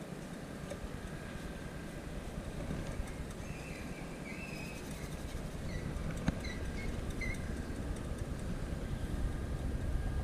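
Outdoor ambience: a low rumble, such as distant traffic or wind on the microphone, grows louder toward the end. A few short bird chirps come in the middle.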